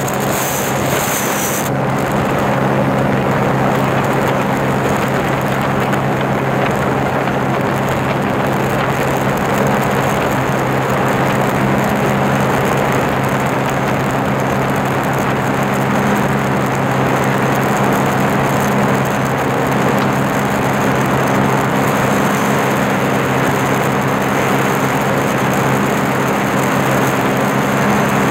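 Sea-Doo Spark 90 HO ACE jet ski's three-cylinder engine running steadily at speed, a constant drone under wind and spray rushing past the microphone.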